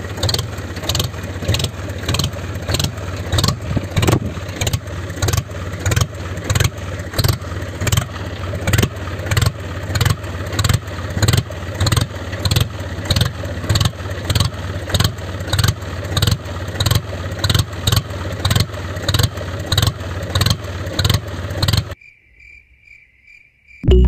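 Tractor engine chugging steadily, a low hum pulsing about twice a second. It cuts out about 22 seconds in, leaving only a faint high tone.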